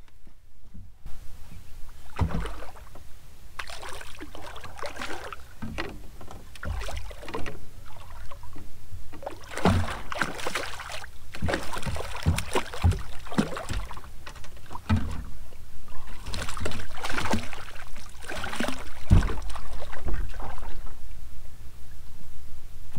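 A hooked redfish thrashing at the side of a skiff as it is landed by hand: irregular water splashes, busier in the second half, with dull knocks scattered through them.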